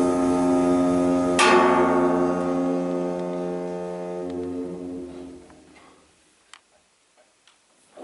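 A concertina holds one sustained chord while a brass hand cymbal is struck once with a mallet about a second and a half in and rings out. The chord fades away by about six seconds, leaving near silence with a few faint clicks.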